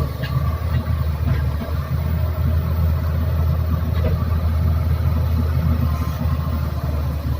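Excavator's diesel engine running steadily, with a few faint knocks over the top.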